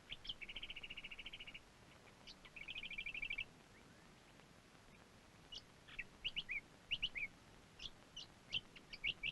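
Birds calling: two rapid, even trills of repeated high notes, each lasting about a second, then from about five seconds in a scattered string of short, sharp chirps and whistles.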